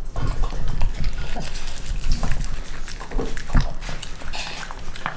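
Dog eating from a stainless steel bowl close to the microphone: irregular wet chewing, licking and lip-smacking clicks over a low rumble.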